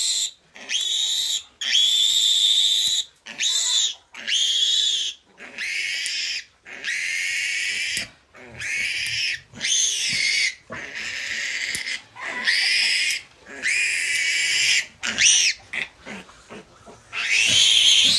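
A young piglet squealing shrilly over and over, about one squeal a second, in distress while held upside down to have its needle teeth clipped.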